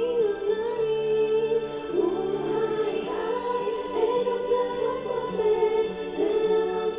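Music with a choir of voices singing sustained notes over a soft, steady beat.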